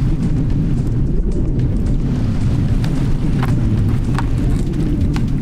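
Wind rumbling on the microphone, loud and steady. In the second half there are a few short cracks as a knife cuts through a crab's shell on a plastic cutting board.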